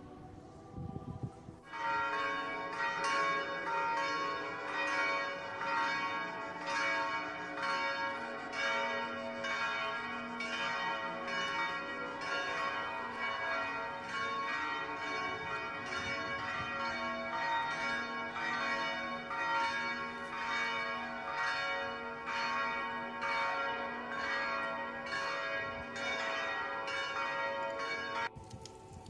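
Church bells ringing, a steady run of strikes on several pitches at more than one stroke a second. The ringing starts a couple of seconds in and cuts off suddenly near the end.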